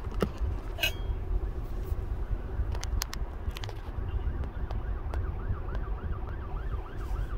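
An emergency vehicle siren in a fast wailing yelp, fading in about four and a half seconds in, over a steady low rumble inside the stopped car.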